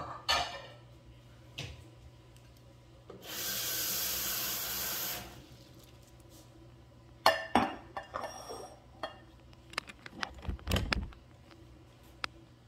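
Off-camera kitchen handling: a steady hiss for about two seconds, then a run of knocks, scrapes and clinks as glass pie dishes are moved about on a stone counter.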